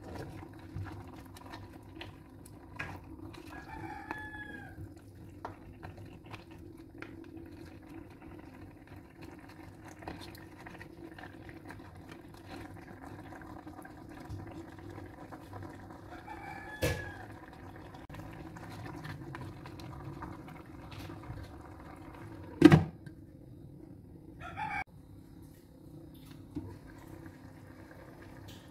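Pangasius catfish heads simmering in spice paste in a nonstick wok: small bubbling ticks over a steady low hum, with scrapes of a spatula as the pieces are turned and one sharp knock of the spatula on the pan about 23 seconds in. A few short animal calls sound about 4, 17 and 25 seconds in.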